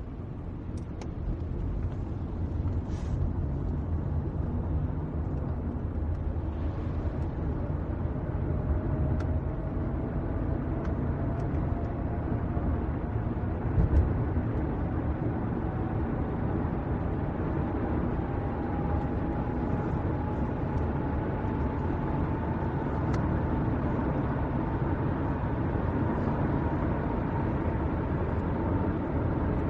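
Car driving, heard from inside the cabin: a steady low engine and road rumble, with a faint whine that slowly rises in pitch. A single thump about halfway through.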